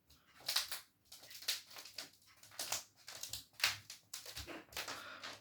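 Freshly relaid laminate flooring squeaking and creaking, a quick irregular series of short crackling squeaks from the boards at their seams.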